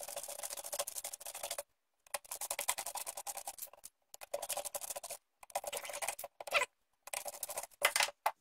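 Screwdriver ratcheting in bursts of rapid clicking, about six strokes with short pauses between them, as the two recoil-pad screws are backed out of the shotgun's buttstock.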